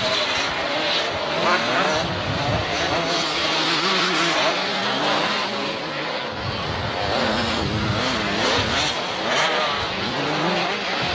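Motocross motorcycle engines revving hard, their pitch rising and falling over and over as the bikes race over the track.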